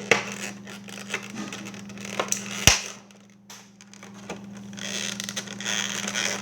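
Hands handling a Funko Pop vinyl figure and its cardboard-and-plastic packaging: scattered clicks, scratching and rustling, with one sharp click about two and a half seconds in. A steady low hum runs underneath.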